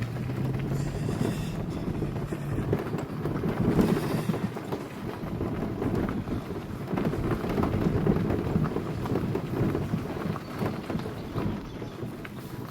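Vehicle driving along a gravel forest road: continuous low rumble of tyres on gravel with crackling throughout and a steady low engine hum in the first few seconds, fading near the end.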